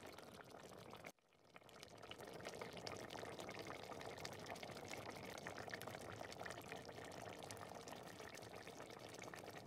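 Pot of marqouq stew, dough sheets in a thick tomato broth, simmering: a faint, steady crackle of small bubbles popping. The sound drops out briefly about a second in, then carries on.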